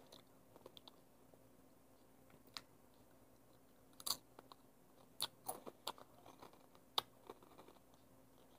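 A child chewing crunchy Flamin' Hot Funyuns onion-ring snacks: faint, scattered sharp crunches, most of them in the second half.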